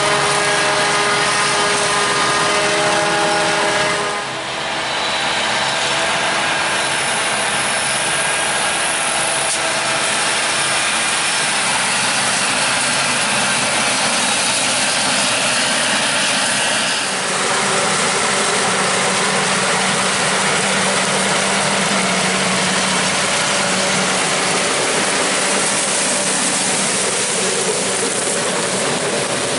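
Corn silage harvest machinery running: a Claas Jaguar forage harvester chopping standing corn, with tractors pulling silage wagons alongside. It makes a loud, steady engine noise over a dense rushing hiss. The sound shifts abruptly about four seconds in and again a little past halfway.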